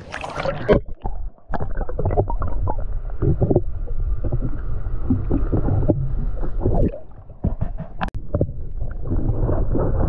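A splash as a phone goes under the water, then muffled underwater gurgling, rumbling and irregular knocks of water against the submerged microphone, with all the high sound cut off.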